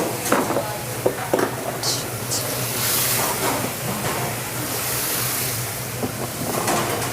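Chicken pieces sizzling in a hot pan, a steady frying hiss that swells and fades, with a few sharp clicks from stirring in the first couple of seconds.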